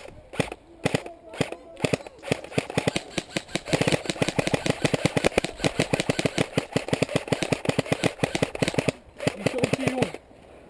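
Airsoft guns firing: a few single shots early, then a long stretch of rapid fire starting about three and a half seconds in and lasting about five seconds, ending with a few more shots.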